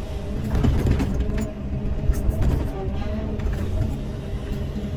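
Caterpillar 320E hydraulic excavator's six-cylinder diesel engine running steadily under load while the bucket digs a trench, with a few short scrapes and knocks of the bucket in soil and roots in the first two seconds.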